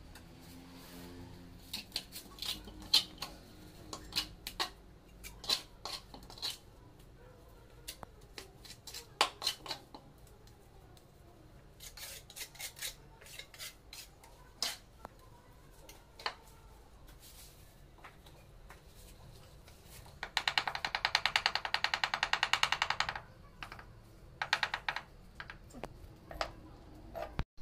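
Steel trowel clinking and scraping against ceramic tile and wet cement mortar as a wall tile is buttered and set, in scattered sharp knocks. About twenty seconds in, a fast, even run of clicks lasts about three seconds, then a few more knocks follow.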